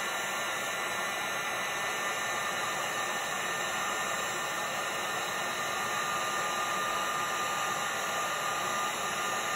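Electric heat gun running steadily: a rush of blowing air with a high fan whine, held over freshly poured UV resin to bring the bubbles out.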